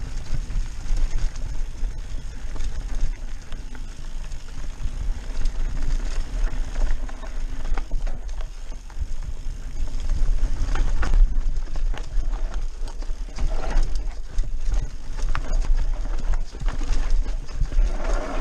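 Mountain bike riding fast down a dirt forest trail: tyres rolling over dirt and roots, with the bike clicking and rattling over bumps and wind rumbling on the GoPro Session's microphone.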